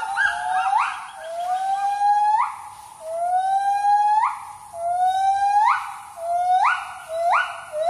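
Gibbon song: a series of long whooping calls, each sliding slowly upward and then leaping sharply higher at its end, repeated about once a second.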